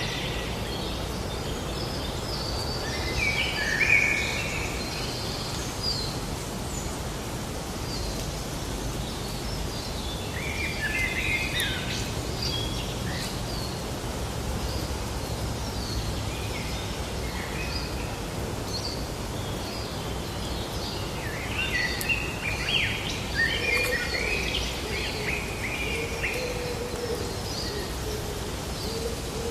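Small birds twittering in short bursts of quick chirps, three or four times, over a steady low outdoor rumble.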